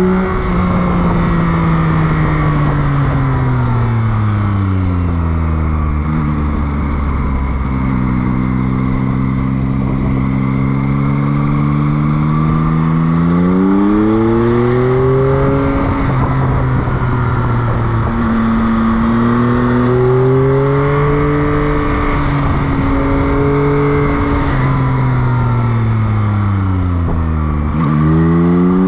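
Motorcycle engine heard from the bike over road and wind noise. Its revs fall away over the first few seconds, run low and steady, then climb and step through the gears in the middle, fall again near the end and pick up once more.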